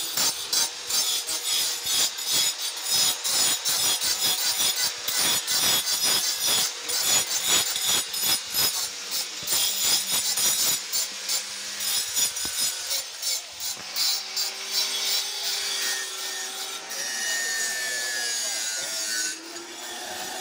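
Small stones being abraded into miniature shivling shapes: a rapid, rough rasping scrape of tool on stone. It eases off about two-thirds of the way through.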